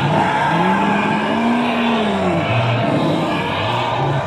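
Animatronic dinosaur roars played through the exhibit's loudspeakers. A long, low roar rises and then falls in pitch, followed by shorter low grunts, with another roar starting near the end.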